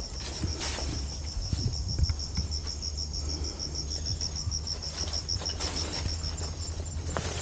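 An insect chirping in a steady, evenly pulsed high trill, with a few scattered footsteps on debris and a low rumble underneath.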